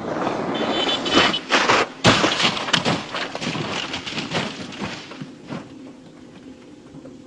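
A rally car crashing and rolling over on a gravel road: a rapid series of heavy thuds and crunching impacts as the body strikes the ground, thinning out and fading after about five seconds.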